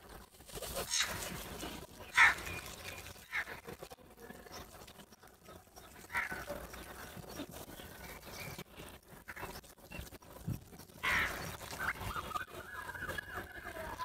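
House crows cawing: about five harsh, separate caws a few seconds apart, the loudest about two seconds in.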